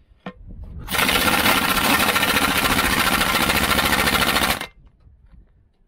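Pneumatic impact wrench hammering at a bolt in one loud burst of about three and a half seconds, starting about a second in, with a few light clicks before it.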